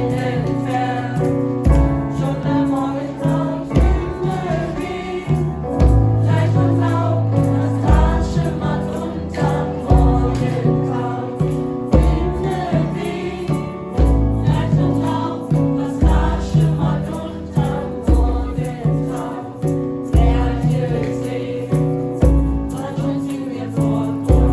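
Music with a choir singing over instrumental backing, held bass notes and a deep beat about every two seconds.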